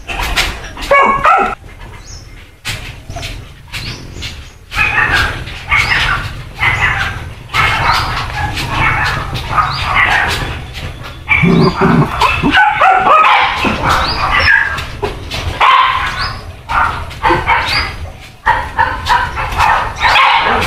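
Puppies yapping and barking over and over in short, high-pitched calls.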